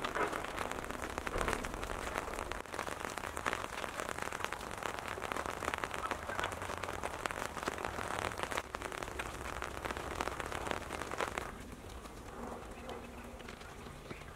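Dense crackling patter of many fine clicks, easing off to a fainter patter about eleven and a half seconds in.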